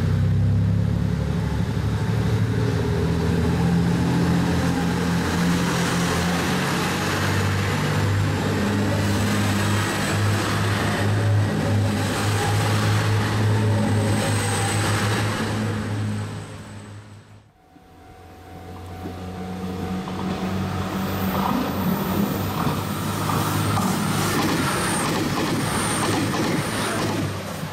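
JR Shikoku 2700 series diesel multiple unit accelerating away from a station, its diesel engines droning deeply and steadily under power. The sound fades out about two-thirds through, then another 2700 series train comes up and accelerates past with the same engine drone and running noise.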